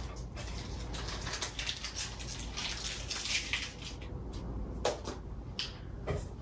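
Rustling and scraping of things being handled, with a couple of sharp clicks about five seconds in.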